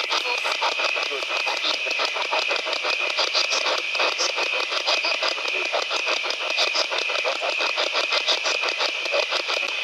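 P-SB11 spirit box sweeping through radio frequencies: rapid, evenly chopped static and snatches of station sound, many chops a second, over a steady high tone. Brief radio voice fragments come through, which the session captions as spirit replies ("Yes", "Don't talk to him").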